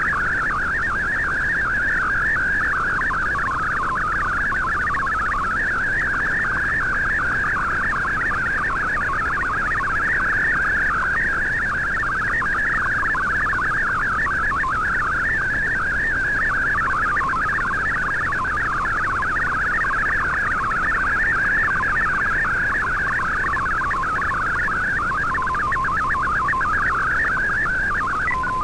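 Shortwave digital-mode picture signal received in AM on an Icom IC-R8600: a fast, warbling stream of tones between about 1 and 2 kHz as an MFSK64 colour image is sent line by line, over faint band hiss. Near the end the warble stops and a single steady tone takes over as the picture completes.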